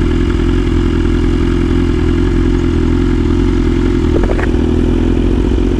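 BMW S1000RR inline-four sportbike engine running at steady revs under way, its note holding one pitch with no shifts or rev changes.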